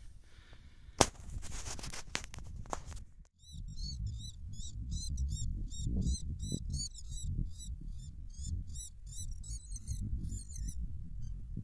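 Rustling and crackling of a bird being handled in a fine net, with a sharp click about a second in. Then, after a cut, a low rumble of wind on the microphone under a bird's high call notes, repeated rapidly several times a second and stopping near the end.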